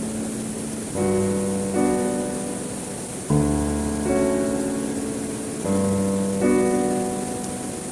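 Background piano music, slow sustained chords changing every second or two, over a steady hiss that may be falling water.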